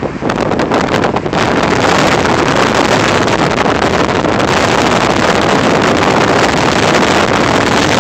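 Wind rushing over the microphone of a moving car: a loud, steady rush of noise, with a few sharp crackles in the first second or so.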